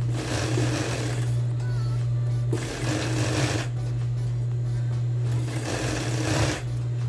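Industrial overlock machine (serger) stitching through denim in three bursts of about a second each. Its motor hums steadily in between.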